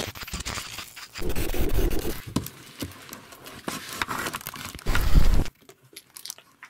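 Handling noise from a camera being fumbled and set in place right against the microphone: rustling and scraping with scattered clicks and knocks, stopping abruptly about five and a half seconds in.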